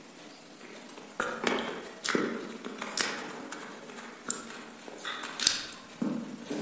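Close-miked eating of chicken wings: biting and chewing, a string of sharp crunches and clicks roughly a second apart, starting about a second in.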